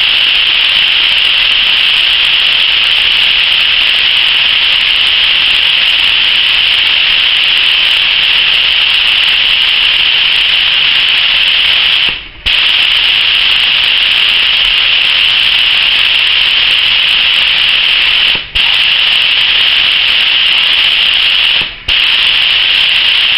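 Compressed air hissing steadily out of a paint spray gun held open on the trigger, air only with no paint loaded, while the inlet pressure is set to about 2 bar. The flow cuts briefly three times, once about halfway and twice near the end, where the trigger is let go.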